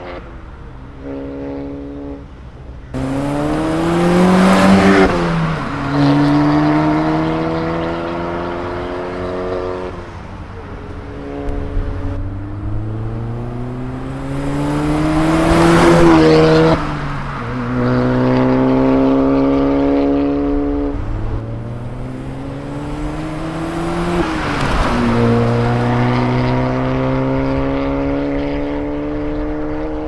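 Suzuki Swift Sport ZC33S 1.4-litre turbo four-cylinder accelerating hard through the gears with the Max Racing exhaust valve open. The engine note climbs steadily and drops at each upshift, loudest as the car passes about five seconds in and again halfway through.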